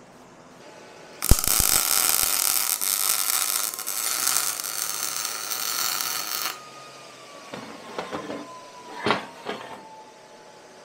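MIG welder arc crackling steadily for about five seconds, starting and stopping abruptly, as weld is laid on a steel valve seat in an aluminum cylinder head so the heat will free the seat. A few light knocks follow.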